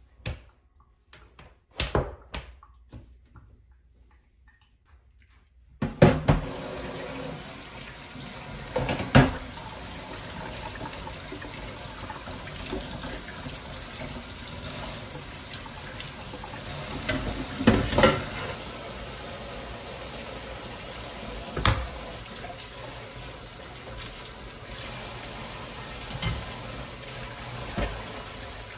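Kitchen faucet running into a stainless steel sink as coffee-equipment parts are rinsed by hand, with occasional clatters of the parts against the sink; the tap comes on about six seconds in. Before that, only a few small clicks and knocks.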